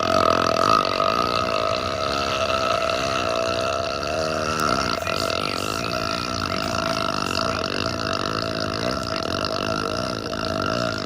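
A man burping at length: one long, continuous burp that starts abruptly and wavers in pitch.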